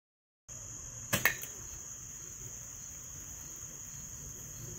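Steady high-pitched chirring of crickets, starting after a moment of dead silence. A sharp click sounds about a second in, followed by a fainter one.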